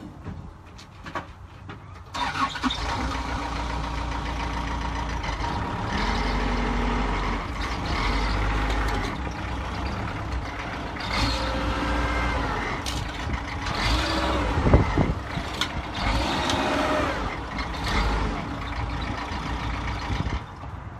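Bobcat B300 backhoe loader's diesel engine revving up about two seconds in and running under load as the machine drives, its pitch rising and falling, with a few sharp knocks, the loudest a little past the middle.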